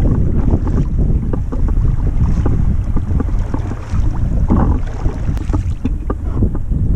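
Wind buffeting the microphone, with water splashing and lapping from kayak paddle strokes; one louder splash comes a little past halfway.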